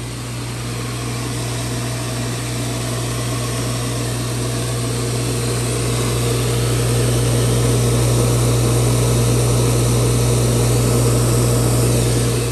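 Pool pump's newly installed 1.5 hp HST150 electric motor running after start-up, pump primed: a steady, loud hum over an even whirring rush. It grows louder over the first several seconds, then holds.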